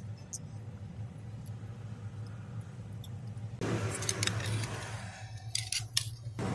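Aluminium antenna tubes clinking and rattling in the hands as they are handled, with clusters of small metallic clicks a little past halfway and again near the end, over a steady low hum.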